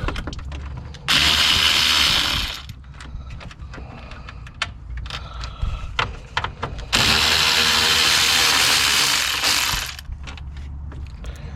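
Power tool running in two bursts of a second or more each, backing out the two 10 mm bolts that hold the radiator cooling fan shroud, with small clicks and knocks of handling in between.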